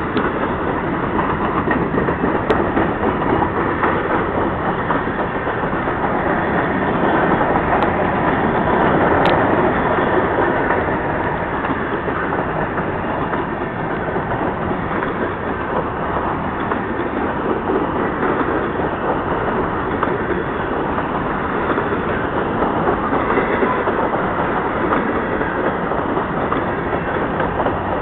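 Freight train of covered hopper cars rolling past: a steady rumble and clatter of steel wheels on the rails.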